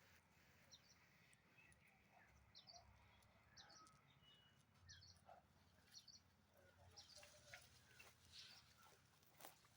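Faint, scattered short high-pitched chirps and squeaks from small animals over a low background hum.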